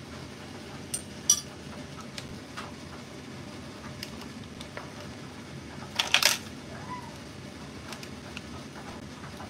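Hard plastic clicks and taps as stick-lids are pressed into a plastic popsicle mould: a couple of sharp clicks about a second in and a louder quick cluster about six seconds in, over a steady room hum.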